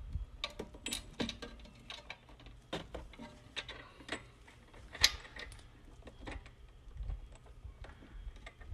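Irregular light metallic clicks and scrapes as a lock ring is worked by hand onto a teck cable connector inside a metal electrical box, with one sharper click about five seconds in.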